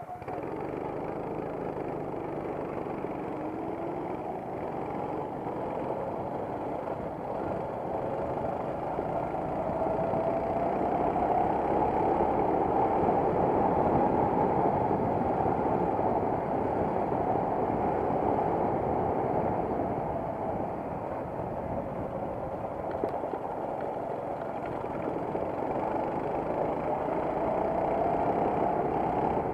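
Racing kart engine heard on board, its pitch rising and falling repeatedly as the kart speeds up and slows, over steady rushing noise. It is loudest a little under halfway in.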